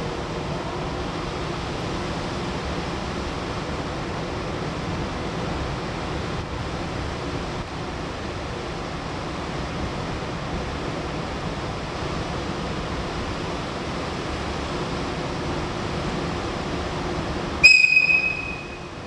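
A train running steadily, then near the end a short, high-pitched train whistle blast that cuts off sharply.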